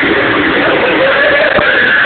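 A loud, harsh jump-scare scream blaring from a computer's speakers, held at full level with a wavering pitch. It is a screamer sprung on the player to frighten him.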